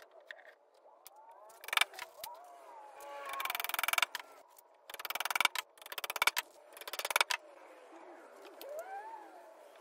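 Glued wooden dowels being driven into drilled holes in oak plywood with a mallet: about five short bursts of quick, light blows, the longest lasting about a second.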